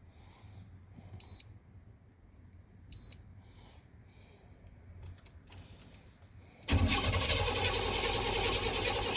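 Two short high beeps, then the 1997 Chevrolet Suburban's engine cranking on the starter with a fast even beat for about three seconds without catching, because the truck is out of gas.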